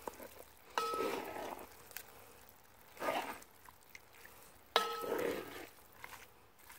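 Wooden spoon stirring and scraping ground-beef chili in a cast iron Dutch oven. Twice, about a second in and again near the end, the spoon knocks the pot and it rings briefly, and each knock is followed by a burst of scraping.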